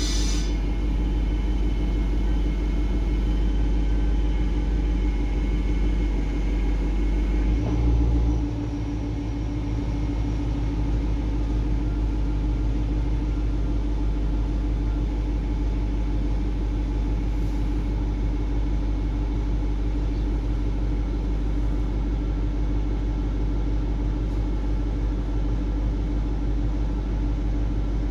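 BMW car engine running steadily with a low hum. About eight seconds in it swells briefly, then settles a little lower.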